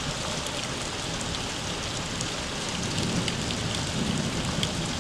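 Steady rain falling on hard surfaces and pooled floodwater, a dense even hiss with scattered drop ticks.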